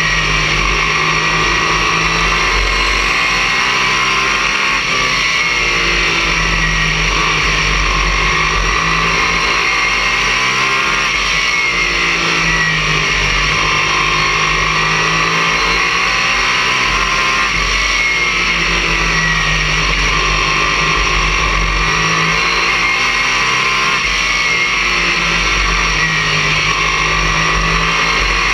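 Race car engine at racing speed heard from inside the cockpit, its pitch rising and falling about every six seconds as it accelerates and lifts lap after lap, over steady wind and road noise.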